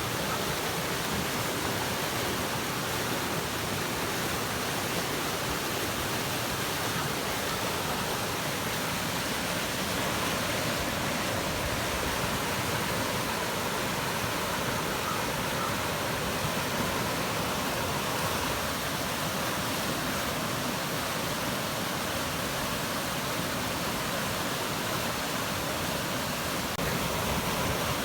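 Flash-flood debris flow rushing down a creek: a steady, unbroken rush of muddy, debris-laden floodwater.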